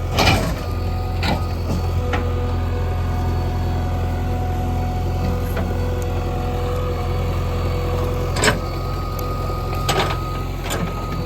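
JCB 3DX backhoe loader's diesel engine running steadily with a constant whine, broken by several sharp knocks, the loudest near the start and about eight seconds in.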